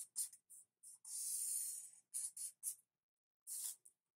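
Sharpie felt-tip marker drawn across a paper legal pad: one long stroke of about a second, then several short quick strokes, as two arrows are drawn.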